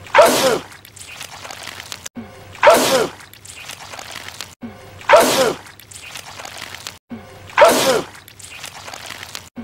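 A man's loud, wet sneeze, the same one repeated four times about every two and a half seconds. Each starts with a short 'ah' intake and ends in a noisy 'choo' that falls in pitch.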